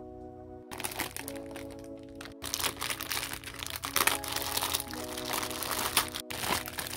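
Clear plastic bag of small figures crinkling loudly as hands squeeze and turn it, starting about a second in, over soft lo-fi background music.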